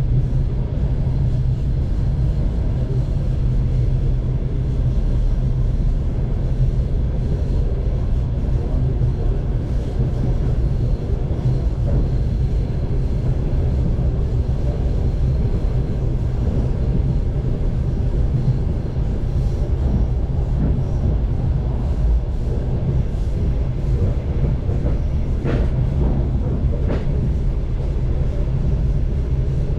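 Moving diesel-hauled train heard from inside the passenger car: a steady low rumble with an even engine hum from the 2TE10U locomotive and the running noise of the wheels on the rails, with a few faint knocks near the end.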